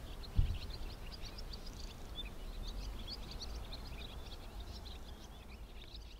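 Many small birds chirping, with a dense run of quick high chirps over a low steady outdoor rumble. A brief low thump comes about half a second in.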